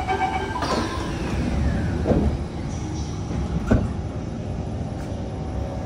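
Inside a Kawasaki C151 metro car: a steady low rumble, with a thin falling whine in the first two seconds and two sharp clunks, about two and three and a half seconds in.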